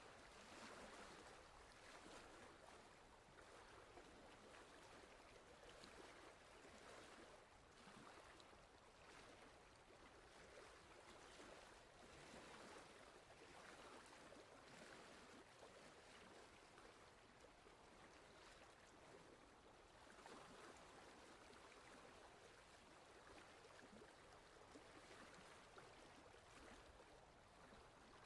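Near silence: a faint, even rushing hiss that swells and eases gently, like distant running water or background noise.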